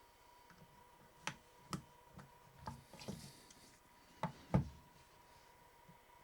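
Sharp clicks and knocks of a screwdriver working the plastic catches of a car indicator stalk unit's housing: about seven separate clicks, with a short scrape around the middle and the loudest knock near the end.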